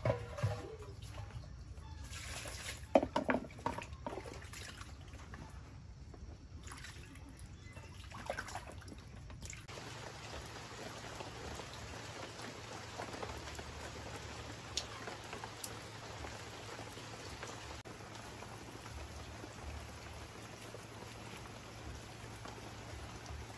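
Water trickling and dripping, with a few sharp knocks and splashes about three seconds in, then a steady, even hiss of water from about ten seconds on.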